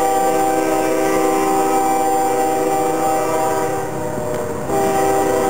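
Nathan K5HL five-chime air horn on an approaching Ferromex GE ES44AC locomotive, sounding a long, steady chord for a grade crossing. It dips briefly about four seconds in, then sounds full again.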